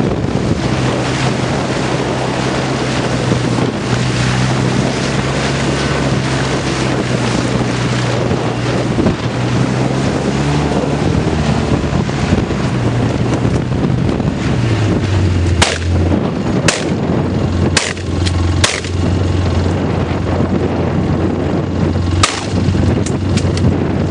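Heavy wind buffeting the microphone outdoors, over a low steady hum that drops in pitch a little past halfway. In the second half, five sharp shotgun shots ring out, four in quick succession and one a few seconds later.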